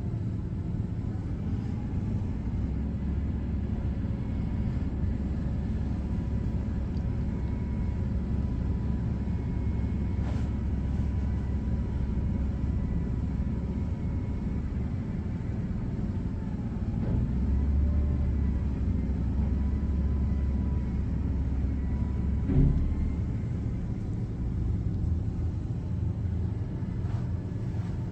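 Front-loader garbage truck's diesel engine running steadily, with a thin steady whine above it. The engine grows louder for a few seconds past the middle, and a single sharp knock sounds about two-thirds of the way through.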